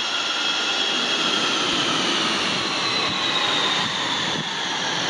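Dassault Falcon 50's rear-mounted Garrett TFE731 turbofans running at idle, a high whine over a steady rush, the whine beginning to sag in pitch as the engines are shut down.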